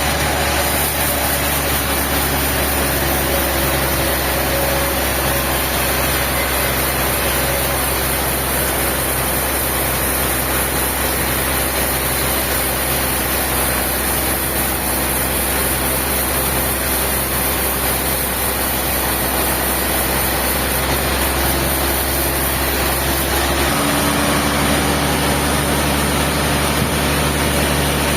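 A heavy engine running steadily at a constant speed, its note shifting abruptly near the end.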